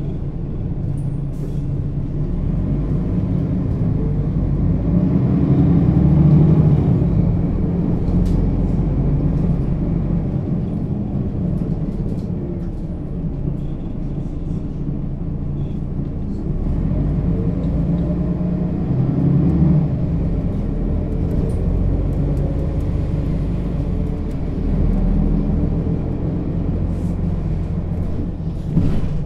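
Mercedes-Benz O 530 G Citaro articulated bus's diesel engine and Voith automatic gearbox heard from inside the bus, running continuously with a deep rumble. The engine note rises twice as the bus accelerates, loudest about six and about twenty seconds in, and a sharp click comes near the end.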